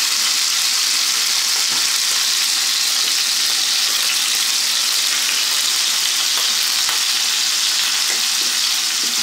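Thick pork steak frying in hot olive oil in a cast-iron pan: a steady, dense sizzle with a few faint crackles.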